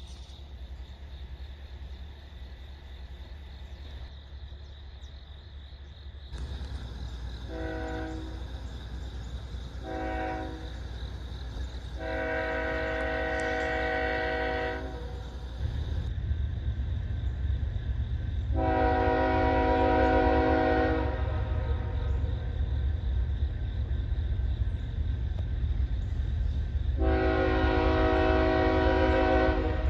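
Freight locomotive's air horn, a chord of several notes, sounding two short blasts and then three long blasts, over the low rumble of the approaching diesel locomotive, which grows louder about a third of the way in and again near the middle.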